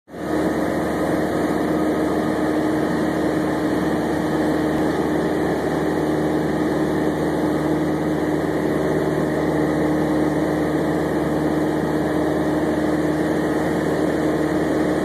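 Cessna 172's piston engine and propeller droning steadily in cruise flight, heard inside the cabin, with a strong unchanging hum.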